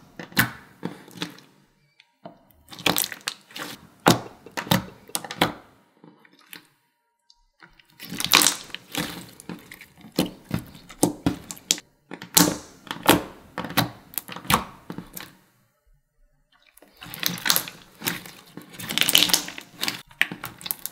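Clear glue slime being squeezed, poked and kneaded by hand, giving quick runs of sticky clicks and crackles. The runs come in four spells, with short silent pauses between them.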